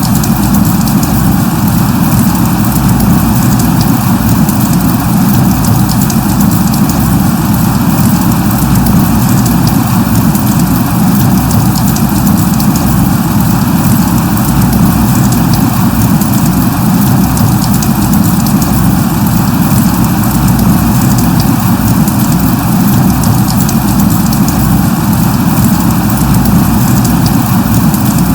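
Steady light rain: an even hiss of drizzle with a fine patter of drops, over a constant low rumble.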